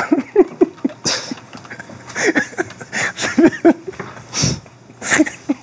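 Moaning and panting from an adult film playing with its sound up on a TV monitor: short rising and falling cries mixed with heavy breaths, coming irregularly.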